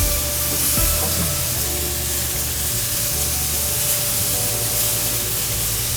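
Soy-glazed chicken kebabs sizzling on a grill: a steady hiss of meat and sugary glaze cooking over the heat.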